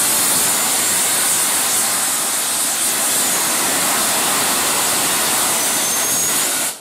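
LNER Class A3 steam locomotive 'Flying Scotsman' blowing steam from its cylinder drain cocks: a loud, steady hiss that cuts off suddenly near the end.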